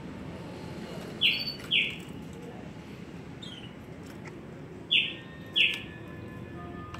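Pet bird calling: two pairs of short, loud chirps that slide downward in pitch, the second pair about three and a half seconds after the first, with a fainter chirp between them.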